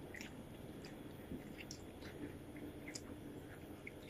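Faint chewing with scattered small mouth clicks and smacks from someone eating fried fish and rice.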